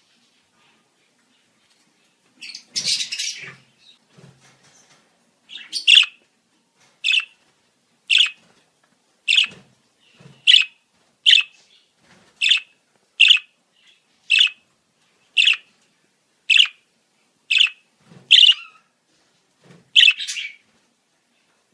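Budgerigars calling: a brief scratchy chatter, then a run of a dozen or more short, sharp chirps at about one a second.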